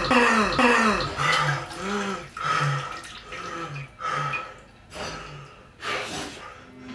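A man's voiced gasping cries: a few short cries falling in pitch, then a run of sobbing breaths with a voice to them, two or three a second at first, slowing and growing fainter.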